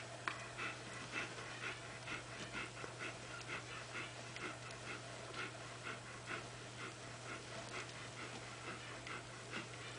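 Mother dog panting steadily, about two breaths a second.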